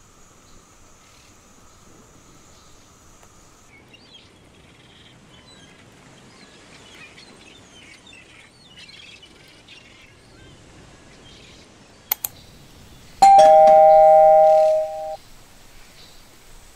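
A two-note chime, like a doorbell's ding-dong, rings for about two seconds after two sharp clicks, over faint chirping.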